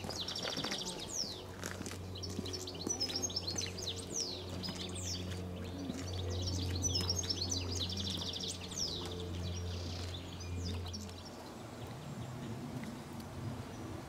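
Small songbirds chirping and singing, with rapid trills near the start and again about six to eight seconds in. Under them runs a steady low hum that stops about eleven seconds in.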